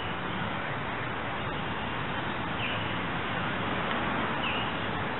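A bird giving a short, high call twice, about halfway through and again near the end, over a steady rushing hiss of outdoor background noise.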